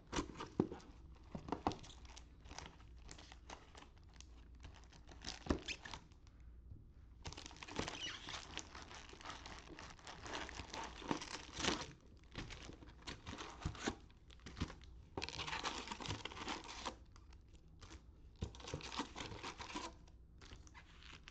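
Crinkling and tearing of a Topps baseball card retail box and its foil-wrapped packs as the box is opened and the packs are pulled out and stacked, with many small clicks and taps. The crinkling comes in several longer stretches after the first few seconds.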